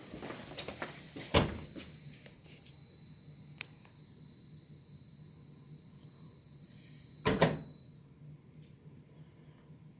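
Gamewell E3 fire alarm panel's trouble buzzer sounding a steady high-pitched tone, with a sharp click about a second in. The tone cuts off with a couple of clicks about seven and a half seconds in, as the panel is silenced.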